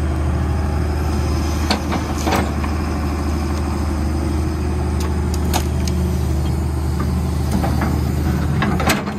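Diesel engine of a Hitachi tracked excavator running steadily while it digs, with a few sharp knocks and scrapes as the bucket works into gravelly soil.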